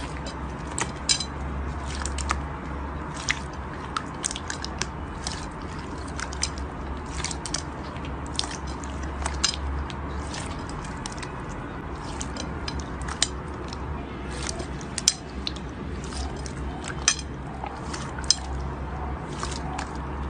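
Crunchy slime being squeezed and worked by hand, giving irregular sharp crackles and pops, several a second and uneven in loudness, over a steady low hum.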